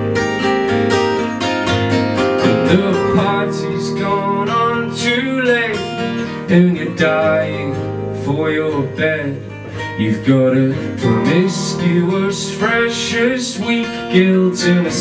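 Two acoustic guitars strummed and picked together, playing an instrumental passage of a live acoustic song.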